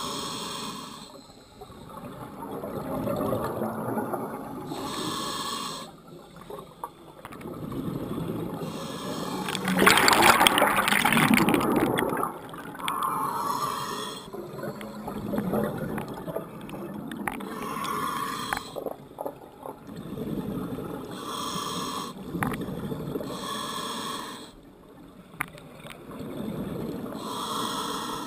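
Scuba diver breathing through a regulator underwater: short hissing inhales alternate with longer bubbling exhales, a breath every three to five seconds. The loudest exhale comes about ten seconds in, as a large gush of bubbles.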